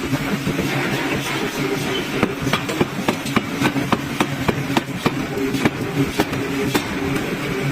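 Heavy forging hammer striking hot iron in a quick run of sharp metal impacts, about three a second, over the steady hum of the running machine.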